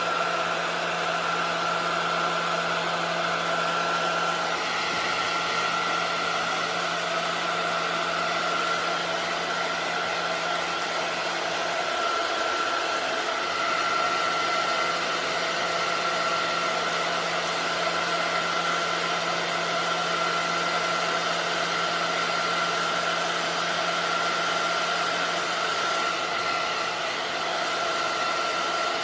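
Hair dryer running steadily on one setting: an even rush of blown air with a constant motor hum and a higher whine, cutting in suddenly at the start.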